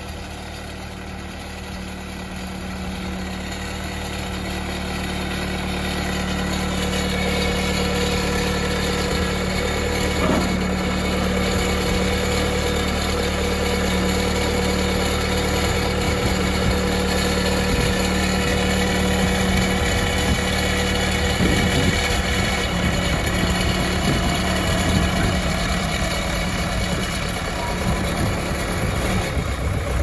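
Case 580E Super E backhoe's engine running, growing louder over the first several seconds and then holding at a steady, higher speed while the front loader is worked. There is some clatter in the second half.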